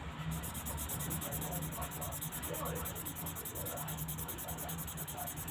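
Twin-tip marker pen rubbing on paper in a fast, even rasp while a drawing is coloured in.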